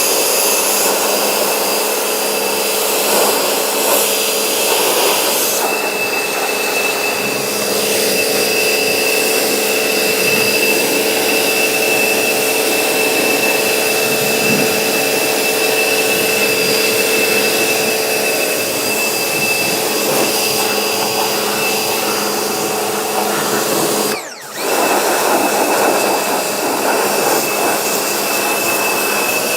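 Pressure washer running steadily, its motor whine under the hiss of the water jet spraying a car body. It drops out for a moment about three-quarters of the way through.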